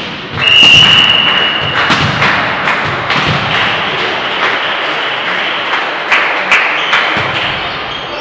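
A referee's whistle blows one long, steady blast of about a second and a half, starting about half a second in. It is followed by scattered thuds of a ball in the hall.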